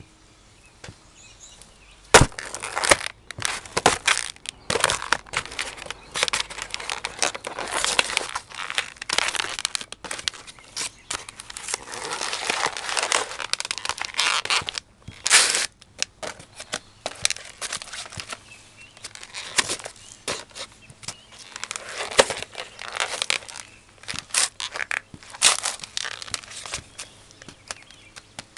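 Cardboard pizza box being stomped and crushed under heavy leather logger boots: a sharp stomp about two seconds in, then repeated crunching and crumpling of the cardboard in irregular bursts with short pauses.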